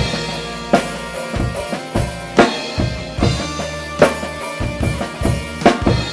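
Drum kit played along to a pop song's backing track in an instrumental break between sung lines. It opens with a loud accented hit, then keeps a steady beat of bass drum and snare over held backing chords.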